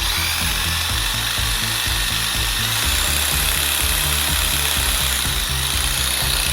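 Bosch jigsaw running steadily under power, its motor and blade mechanism switching on suddenly at the start with a high whine, working again after repair of its seized armature. Background music plays underneath.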